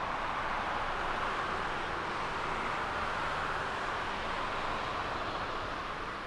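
Jet engines of a twin-engine widebody airliner at takeoff thrust during the takeoff roll and liftoff: a steady rushing jet noise.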